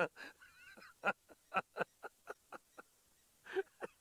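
Egyptian goose giving a rhythmic series of about eight short honks, roughly four a second and fading slightly, with one louder call near the end. Brief high twittering bird calls come about half a second in.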